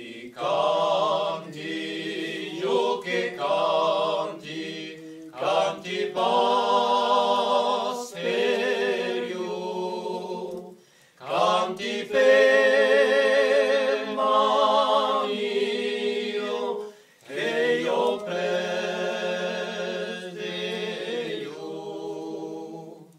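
Unaccompanied choir singing in long held phrases, with short pauses between phrases.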